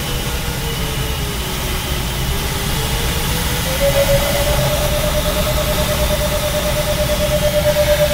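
Glider cockpit noise: a steady rush of airflow over the canopy, with a thin electronic variometer tone that dips in pitch and then jumps higher about four seconds in and holds there.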